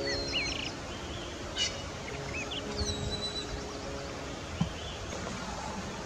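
Small birds giving short, quick chirping calls over steady outdoor background noise, with soft background music holding sustained notes; a single brief thump about four and a half seconds in.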